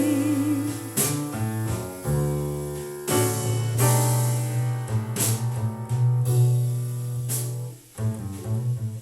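Instrumental passage of a slow jazz ballad played through a Telefunken RA 100 hi-fi amplifier: long low bass notes with piano chords and a cymbal-like hit about every two seconds, after a held sung note fades out at the start.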